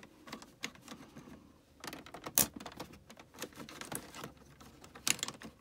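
Small plastic clicks and ticks as a two-piece plastic vent tab is squeezed together onto a car air-vent louver with a pick. Two sharper clicks stand out, about two and a half seconds in and again about five seconds in.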